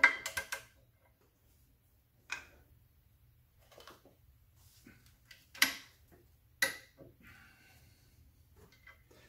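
Torque wrench tightening the clutch pressure-plate bolts to 20 ft-lb, metal clicking: a quick run of clicks at the start, a softer click about two seconds in, then two sharp clicks about a second apart near the middle.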